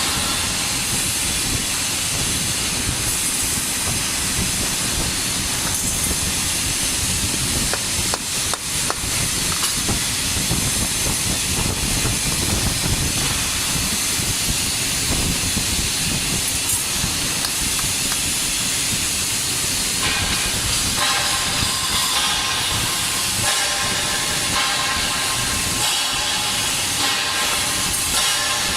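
TIG welding arc from an Omega Tig 350T welder, burning with a steady hiss and crackle. A steady tone joins the hiss about twenty seconds in.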